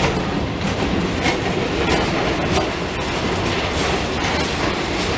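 Railroad flatcars carrying bunk-car modules rolling past close by: a steady rumble with repeated clacks of the wheels over the rail joints.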